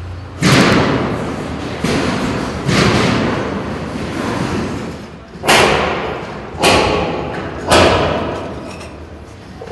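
Six heavy bangs from building work, unevenly spaced. Each one echoes and dies away over about a second, as in a large, half-built hall.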